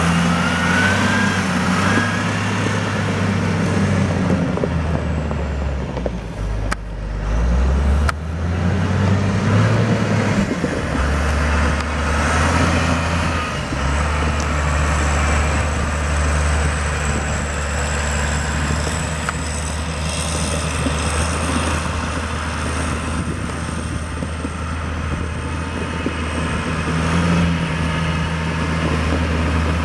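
John Deere 544G TC wheel loader's diesel engine running under load, its note rising and falling as the machine dumps and drives, with a thin high whine through the middle stretch.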